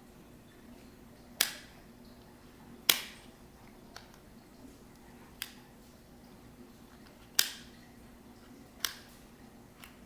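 Plastic puzzle ball toy clicking as it is twisted and scrambled: about five sharp, separate clicks at irregular intervals.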